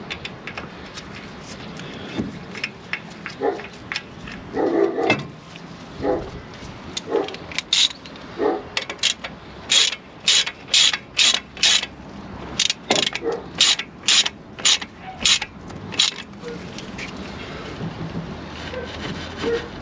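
Ratchet wrench with a bit socket clicking in short bursts as it drives in a brake disc retaining screw. The bursts come about two a second through the middle.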